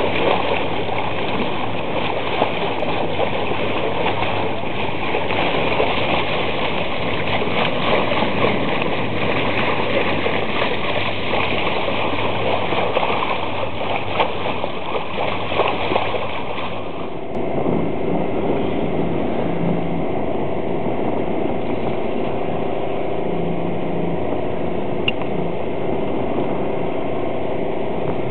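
Water rushing and splashing along the bow of a sailing yacht under way, a dense steady wash. About seventeen seconds in it gives way abruptly to a steady engine hum with a low pulse, the yacht motoring on calm sea.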